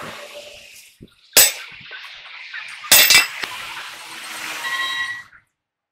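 Metal clanking against a steel truck wheel hub: one sharp clang a little over a second in, then a quick cluster of clangs about three seconds in, each ringing briefly. The sound cuts off suddenly near the end.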